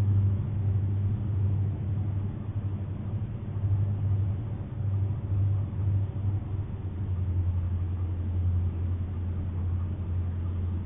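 A steady low rumbling drone with a faint pitched hum in it, running evenly with no distinct events.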